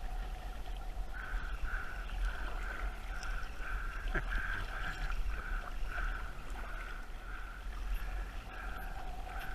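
Faint water and wind noise around a kayak at sea, with a faint whine that pulses about twice a second throughout.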